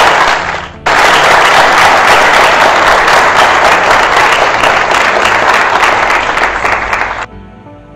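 Audience applauding loudly, dropping for a moment about a second in and coming back sharply, then cut off abruptly near the end, leaving soft background music with held notes.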